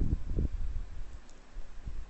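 Computer mouse clicks picked up by the microphone: two dull clicks about half a second apart near the start, over a low rumble.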